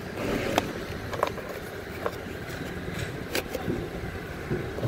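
Sharp plastic clicks and knocks, four or so spread over a few seconds, as the truck's plastic cowl trim over the cabin air filter is handled and pushed into place. Under them runs a steady low vehicle rumble.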